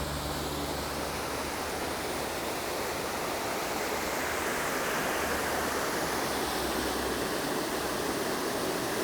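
A small waterfall on an urban stream, water pouring and splashing in a steady rush.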